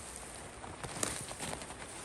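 A few irregular light knocks and crunches over a faint steady hiss, the clearest about a second in.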